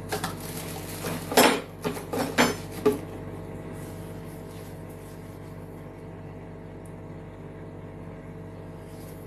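A handful of short clinks and knocks of kitchenware being handled in the first three seconds, the loudest about a second and a half in, then only a steady background hum.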